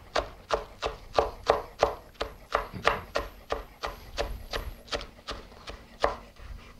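Chef's knife chopping green onions on a wooden cutting board: a steady run of sharp strikes, about three a second, that thins out near the end.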